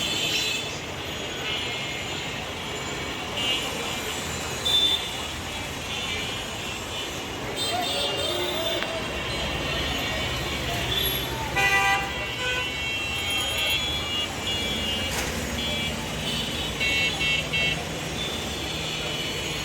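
Congested street traffic: engines running under a steady haze of road noise, with vehicle horns honking again and again in short blasts, one loud honk about halfway through and three quick toots near the end, and voices of people in the crowd.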